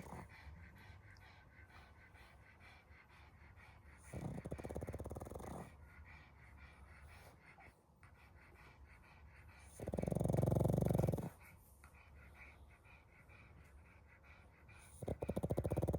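A dog snoring in slow, regular breaths. Each snore lasts about a second and a half and comes every five to six seconds, and the one about ten seconds in is the loudest.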